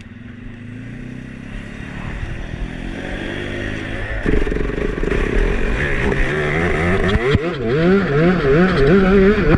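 A 200cc racing kart engine catching on a push start and running, growing louder. About four seconds in its revs step up sharply, then rise and fall quickly over and over as the kart drives out onto the track.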